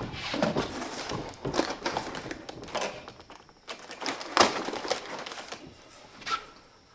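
Handling of tool parts and packaging: irregular clicks, taps and knocks with some rustling, the sharpest knock about four and a half seconds in.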